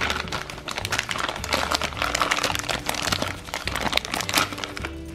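Clear plastic packaging bag crinkling irregularly as hands handle it and pull plastic toy parts out of it.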